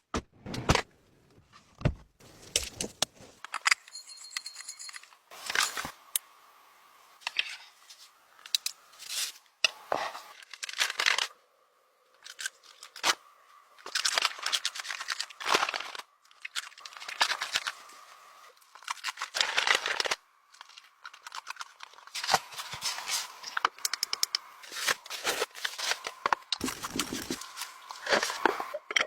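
Irregular handling sounds: rustling, crinkling and tearing, broken by many sharp clicks and knocks.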